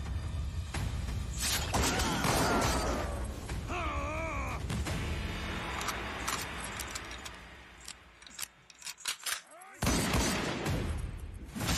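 Film fight-scene soundtrack: dramatic music with crashing and shattering impacts, a wavering tone about four seconds in, a quieter stretch about eight seconds in, then a sudden loud hit about ten seconds in.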